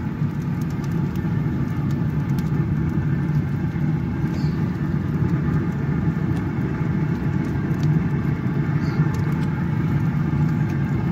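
Steady low motor hum of a wood pellet grill's fan running, with a few faint soft taps as a cotton basting mop dabs sauce onto ribs on the grate.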